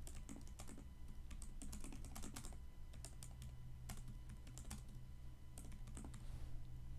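Typing on a computer keyboard: quick irregular runs of key clicks that stop shortly before the end, over a steady low hum.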